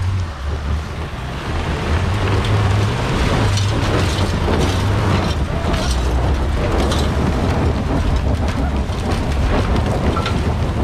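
Volkswagen Amarok 3.0 V6 turbodiesel running hard under load on a steep climb, its tyres spinning on loose stone and flinging gravel that clatters with many small clicks.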